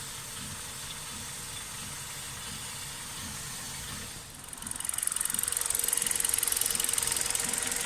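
Hyundai Solaris with its engine running quietly, then about halfway a loud grating scrape with a fast rhythmic pulse sets in from the front-left wheel's brake under light braking. This is the noise the owner blames on raised streaks that formed on the brake disc after a wash, with the pads catching on them.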